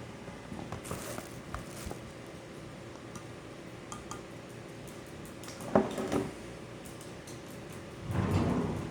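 Kitchen handling sounds of pots and utensils: scattered light clinks, a sharper knock about six seconds in, and a longer louder scraping shuffle near the end.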